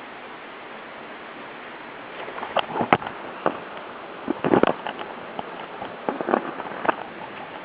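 Steady rush of a mountain stream, with a run of irregular knocks and scrapes from about two seconds in until about seven seconds in.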